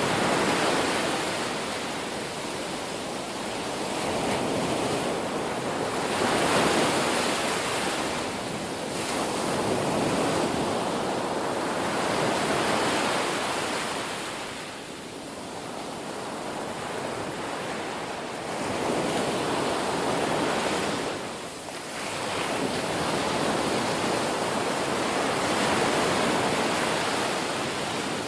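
Ocean waves breaking and washing on a shore, a continuous surf hiss that swells and ebbs with each wave every few seconds.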